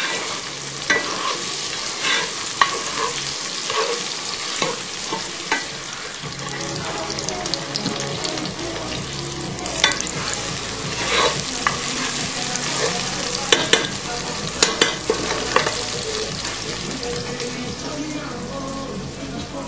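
Food frying in olive oil in a pan: a steady sizzle, with the clicks and knocks of a utensil stirring and scraping against the pan every second or so.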